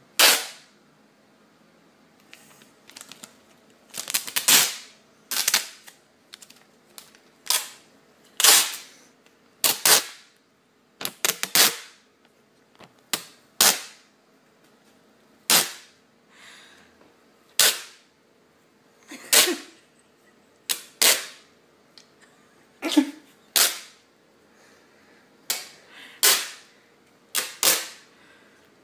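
Adhesive tape being ripped off the roll in short strips, again and again: about twenty quick, rasping tears at irregular intervals of a second or two.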